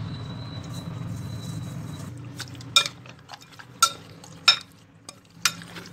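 Metal spoon stirring chicken in a thick yogurt marinade in a glass bowl, with four sharp clinks of the spoon against the glass in the second half.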